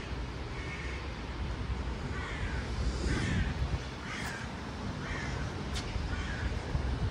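A crow-like bird calling in a series of short caws, about one a second.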